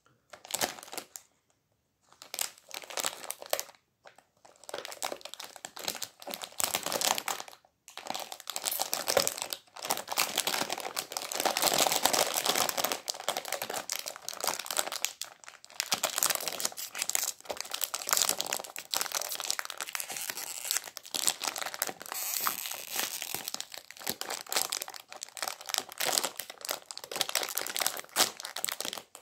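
Plastic film wrapper of a packaged chocolate cake crinkling as it is handled and pulled open at its crimped end seal, with a few short pauses in the first eight seconds.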